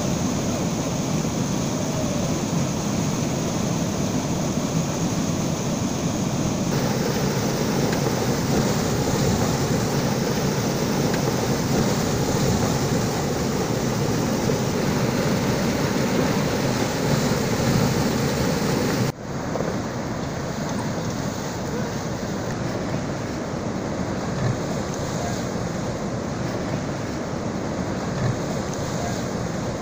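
Whitewater pouring over a concrete weir into a churning pool: a steady rushing noise. Its sound changes abruptly about seven seconds in and again about nineteen seconds in.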